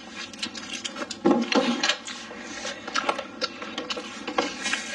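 Close-up eating sounds: a person chewing a mouthful of food, with frequent short clicks and smacks and a louder mouth sound about a second and a half in.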